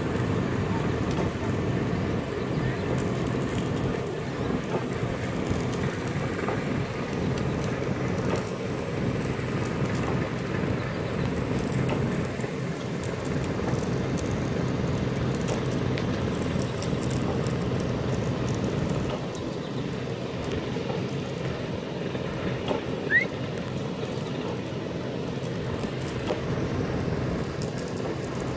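Sealcoat spray rig running steadily, its engine and pump droning under the hiss of asphalt sealer spraying from a hand wand onto the pavement. A single short high chirp comes about two-thirds of the way in.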